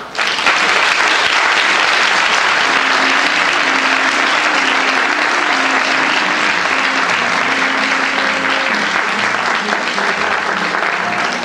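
Theatre audience applauding, breaking out suddenly and holding steady and loud.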